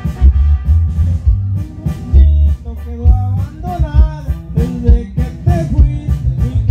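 Amplified band music with bass, drums and guitar, and a man singing over it through a microphone from about three seconds in.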